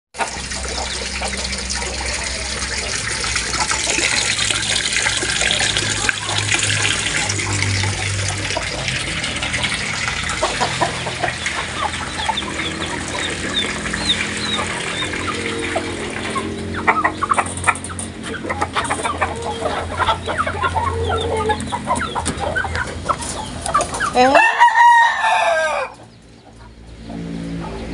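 A flock of free-range village chickens clucking and cackling, with a rooster crowing loudly once near the end.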